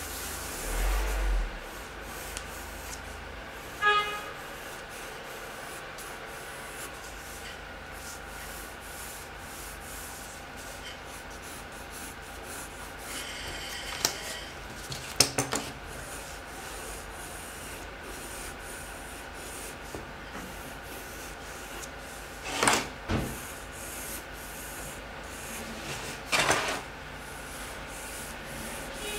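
Pencil lead scratching and rubbing on drawing paper as a circle is gone over again with firm pressure. A few louder, longer strokes come in the second half.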